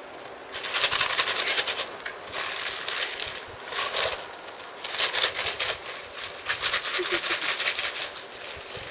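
Plastic tarp crinkling and crackling in irregular spells of rapid clicks as Czechoslovakian wolfdog puppies walk and scramble on it.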